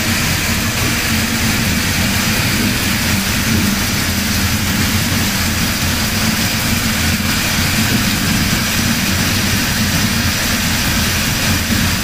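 Roller-die wire drawing machine running steadily: a constant low machine hum from the capstan drums and drive, under a steady hiss of coolant spraying and splashing over the drums as the wire is drawn.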